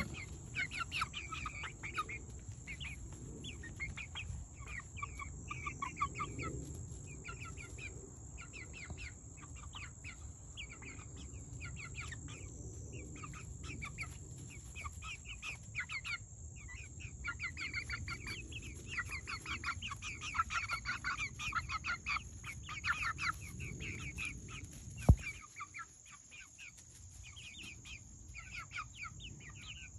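A flock of young chickens, not yet laying, clucking and giving short high peeping calls almost without pause as they forage. A single sharp knock comes once, late on.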